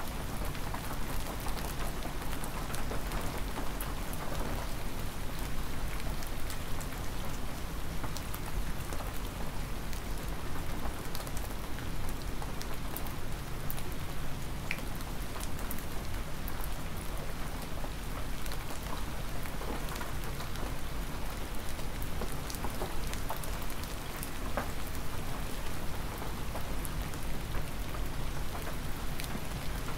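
Hard spring rain falling steadily: a constant hiss with many sharp drop impacts ticking through it and a low rumble underneath.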